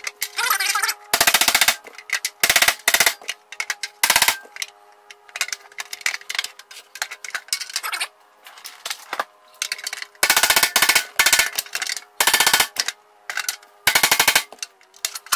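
Hammer striking a block of wood held against a dented metal tool box to knock the dents out, in quick bursts of rapid blows separated by pauses.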